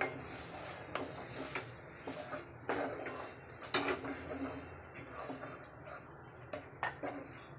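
Wooden spatula knocking and scraping against a non-stick frying pan as okra in thick masala is stirred: irregular taps, the loudest about four seconds in.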